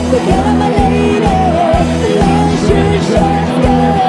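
Live rock band playing, with a singer over guitar, bass and a steady drum beat.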